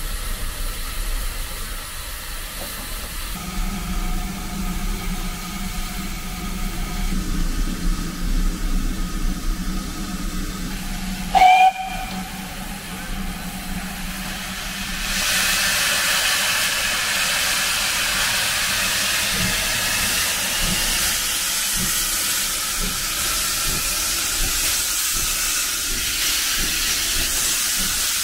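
GWR 5600 class 0-6-2T tank locomotive standing with steam hissing from its front end. A brief whistle sounds about a third of the way through, and from about halfway the steam hiss grows louder and steadier.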